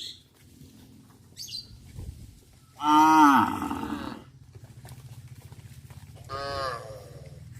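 Cattle mooing: one loud, long moo about three seconds in, then a shorter, higher moo near the end. A low, steady pulsing hum runs under the second half.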